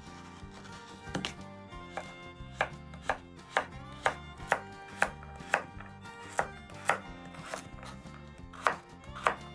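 Knife chopping vegetables on a cutting board, sharp cuts about twice a second with a few short pauses, over background music.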